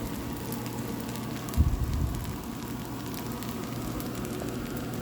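Fried rice sizzling and crackling in a hot pan as it is stir-fried, over a steady low hum. A single dull low thump about a second and a half in.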